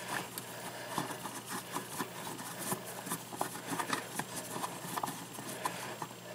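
Screwdriver working the screws of a GFCI outlet in its metal wall box: a run of small, irregular clicks and scrapes.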